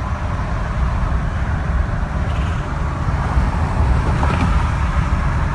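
Ford 6.7 Power Stroke V8 turbo-diesel engine running, a steady, deep sound; the engine is said to be knocking and shaking.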